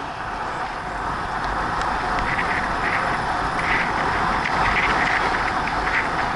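Wind rushing over a Sony HDR-AS30V action camera's microphone on a bicycle travelling at about 40 km/h, mixed with tyre noise on the asphalt. It is a loud, steady rush.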